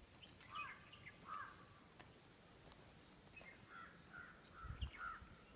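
Faint bird calls: short, repeated calls, a couple in the first second or so, then a run of them in the second half. A few low thumps near the end.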